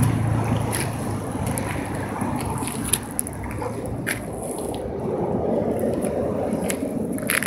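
Wind rumbling on the microphone, with a few light clicks.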